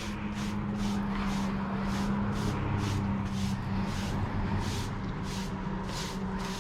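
Broom sweeping in quick regular strokes, about two a second, each a short brushing swish, over a steady low hum.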